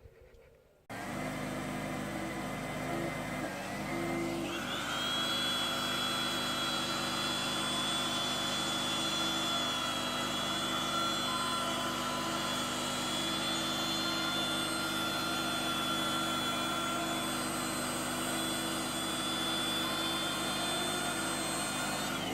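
Small portable petrol generator, converted to run on propane fed into its carburettor, running steadily. The sound cuts in about a second in, and a few seconds later a high whine rises and then holds steady.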